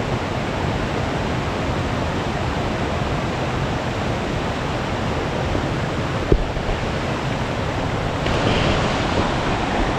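Shallow forest stream running over rocks: a steady rush of water, with a single sharp click about six seconds in.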